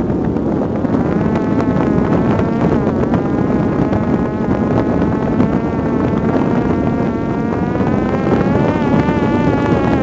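Parrot Disco fixed-wing drone's electric motor and propeller whining in flight at half throttle, the tone wavering slightly in pitch, over heavy wind rush on the microphone.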